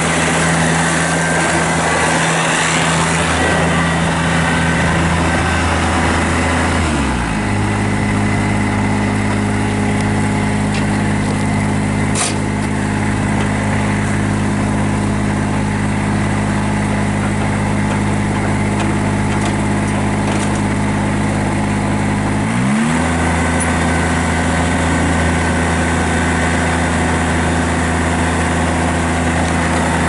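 Kubota BX23 subcompact tractor's three-cylinder diesel engine running steadily at raised throttle, dropping to a lower idle about seven seconds in, then speeding back up about two-thirds of the way through.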